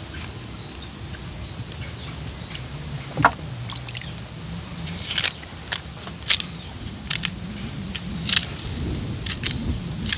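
Green banana skins being pried and torn off by hand: a string of short, sharp snaps and crackles as the tough peel comes away, at irregular intervals.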